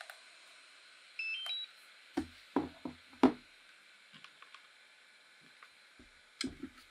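A short rising sequence of three or four electronic beeps about a second in as a DJI FPV drone powers on, then several hard plastic knocks as the drone is handled on the table, the loudest about three seconds in, all over a steady faint hiss.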